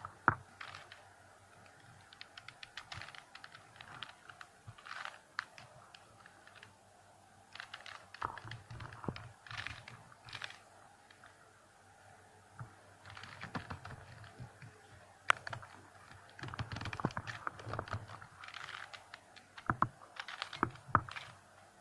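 A plastic 3x3 Rubik's cube being turned by hand: irregular runs of quick clicking and clacking as the layers are twisted, with short pauses between runs, while the final last-layer algorithm is worked through to finish the cube.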